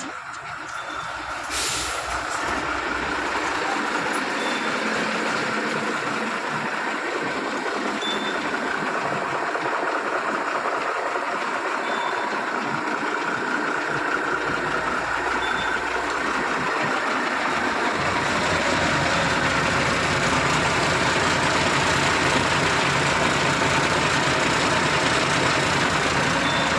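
Steady running noise of a heavy truck, with faint short high beeps every three or four seconds. The low rumble grows stronger about eighteen seconds in.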